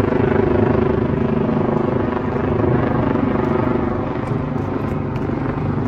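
Helicopter in flight: a steady rotor and engine drone, a little weaker in the last two seconds.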